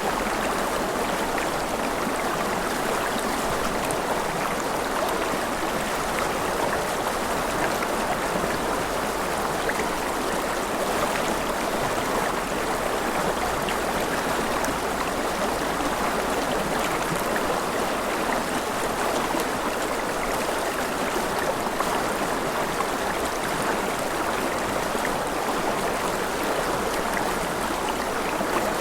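Continuous water sound, an even rushing hiss with faint scattered ticks, steady throughout.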